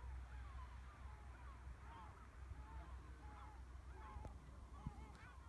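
A flock of birds calling: many short, rising-and-falling calls overlapping one another, faint, over a low rumble. A brief click sounds near the end.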